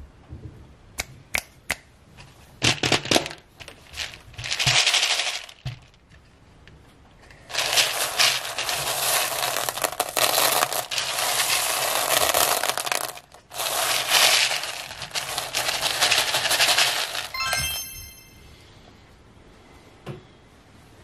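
Handfuls of small round plastic beads clattering in a plastic tray: a few separate clicks at first, then long stretches of beads showering and rattling as they are scooped up and let fall. A brief ringing tone sounds near the end.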